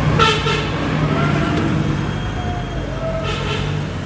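Large team coach's engine running as it rolls slowly past, a steady low hum. Two brief high-pitched sounds come over it, one just after the start and one about three seconds in.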